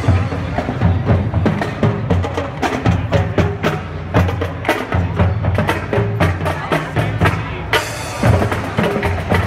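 Marching band playing, sousaphones holding low notes under many sharp drum and percussion hits.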